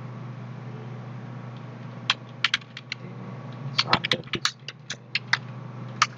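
Typing on a computer keyboard: a few separate keystrokes about two seconds in, then a quicker run of keystrokes over the last two seconds, over a steady low hum.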